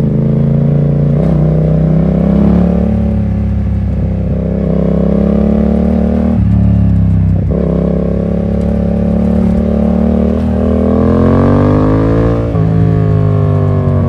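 2015 Yamaha MT-07's parallel-twin engine through an SC Project full exhaust with the dB killer removed, running under load while riding. Its pitch shifts with several gear changes, and a long rise in revs near the end is cut off by a shift.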